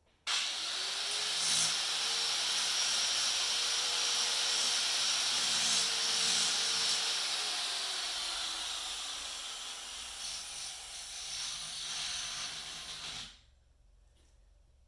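Electric welding arc hissing in one steady run of about 13 seconds. It starts and cuts off abruptly and eases slightly before it stops.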